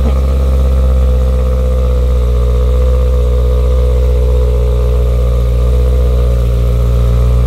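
BMW E91 M3 wagon's V8 idling steadily through a Valvetronic valved exhaust with the valves closed, still warming up just after a start. It is an even, deep exhaust note that holds one pitch, with no revs.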